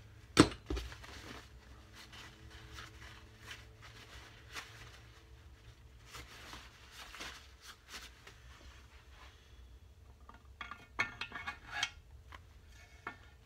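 Steel hand reamer and its slider being worked in the camshaft bush of a BSA A70L Lightning's aluminium crankcase: scattered metal clinks and light scrapes, with a sharp click about half a second in and a run of clicks and scrapes near the end. The bush is being reamed to free off a tight camshaft.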